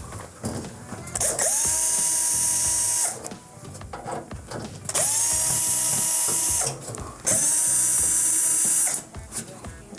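Cordless drill-driver backing out sheet-metal screws from a gas range's control-panel cover: three runs of about a second and a half each, the motor whine rising quickly to a steady pitch, with small clicks and handling noises between.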